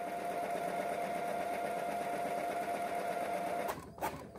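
Brother inkjet printer running its printhead cleaning cycle: a steady motor drone with one held tone. About three and a half seconds in it stops and gives way to a few clicks and knocks from the mechanism.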